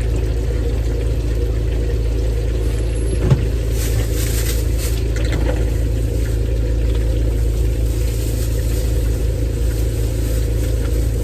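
A steady low machine hum, with a single sharp knock about three seconds in.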